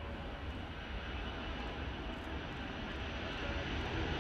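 Boeing C-17A Globemaster III's four Pratt & Whitney F117 turbofans at takeoff thrust during the takeoff roll: a steady jet roar with a faint whine, growing louder as the aircraft comes closer.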